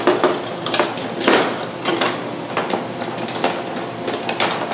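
Metal meat-hanging hooks clinking and clattering as they are handled, a string of irregular sharp metallic clicks.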